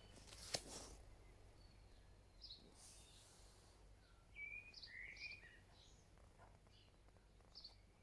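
Faint bird chirps, a few short calls spread across the quiet, with a single sharp click about half a second in.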